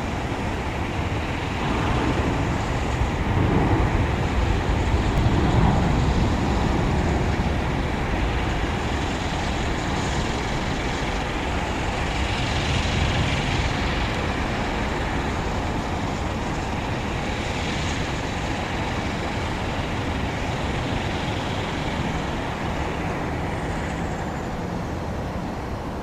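Boeing 777 freighter's GE90 jet engines on approach, a steady rumble that swells about three to six seconds in and then holds level.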